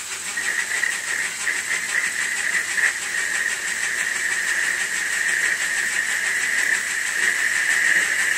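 Metal lathe running while a boring tool cuts the inside of a cast alloy end cover, opening out its bore. The cut gives a steady high-pitched whine that sets in just after the start and grows louder toward the end, over the lathe's constant hiss.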